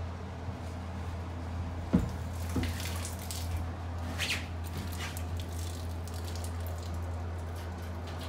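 Steady low hum of a room air conditioner, with a single thump about two seconds in, a lighter knock just after, and a few soft scuffs and rustles a little later.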